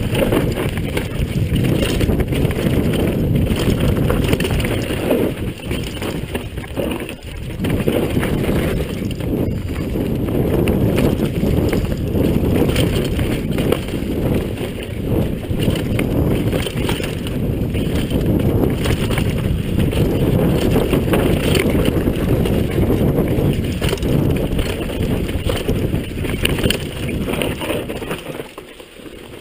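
A downhill mountain bike descending a dirt trail at speed: wind rushing over the rider-worn camera's microphone, tyre rumble, and rattling knocks from the bike over bumps. The noise eases off near the end.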